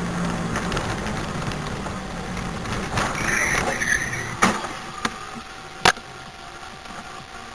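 Car interior road and engine noise recorded by a dashcam while driving, a steady hum. A few sharp knocks come about four and a half and six seconds in.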